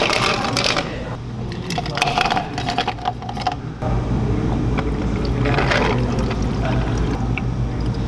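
Ice cubes clattering from a metal scoop into plastic cups, at the start and again a couple of seconds later. Then green tea latte is poured from a pitcher over the ice.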